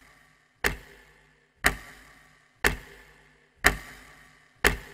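Clock ticking once a second, five sharp ticks that each die away quickly: a ticking-clock sound effect.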